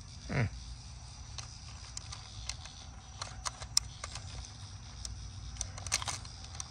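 Small sharp plastic clicks and taps as a toy spare tire is pressed onto its mount in the bed of a 1980s M.A.S.K. toy pickup truck, coming in two short clusters. Near the start, a brief sound that falls steeply in pitch is the loudest thing.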